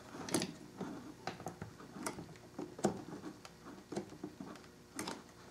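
Scattered light clicks and taps of hands working a RAM stick in a motherboard memory slot and its plastic latches, about a dozen irregular clicks. The module is not seating with a click.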